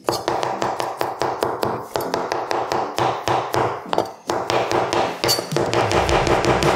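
Nakiri knife rapidly chopping fresh parsley on a plastic cutting board: a quick, even run of sharp taps, several a second, over background music.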